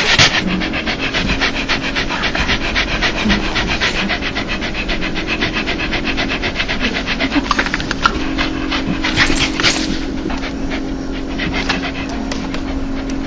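Dog panting rapidly in a fast, even rhythm of short breaths: the open-mouthed, happy panting that owners call a dog's laugh.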